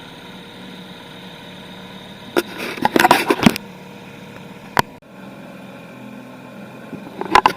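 Small two-stroke outboard motor (a Nissan/Tohatsu 3.5 hp) running steadily at low throttle, pushing an aluminium canoe. A cluster of sharp knocks and crackles comes about two and a half seconds in, another single knock just under five seconds in, and more near the end.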